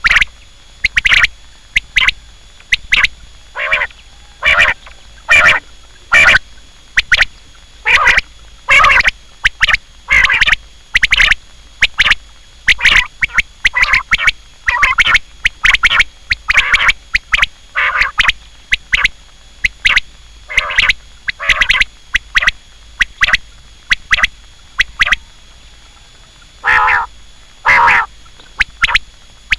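Quail calling: short, harsh notes repeated about once or twice a second, some in quick pairs, with a brief pause near the end.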